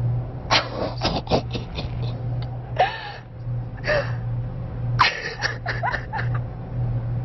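A woman gasping and breathlessly laughing, overcome with emotion, with two short high-pitched cries about three and four seconds in. A low steady hum runs underneath.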